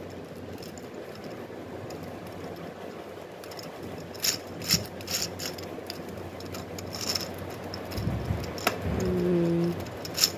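Plastic gear cube puzzle being twisted by hand: its interlocking gear pieces click and clatter as faces are turned, in irregular bursts from about four seconds in. A brief low hum sounds near the end.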